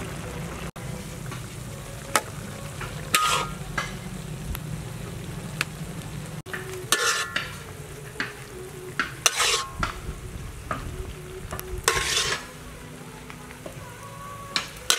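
Shrimp and luffa gourd stir fry sizzling and bubbling in a wok, with a metal spatula scraping across it several times in short, loud strokes as the dish is scooped out.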